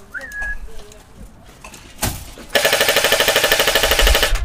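Airsoft electric rifle (AEG) firing a rapid full-auto burst of about two seconds, starting about halfway through. A single sharp knock comes just before it.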